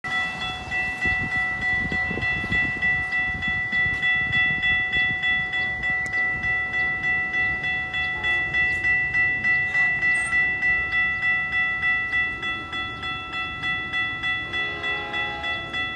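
Railroad crossing warning bell ringing steadily at about three strikes a second while the crossing's lights flash and gates are down.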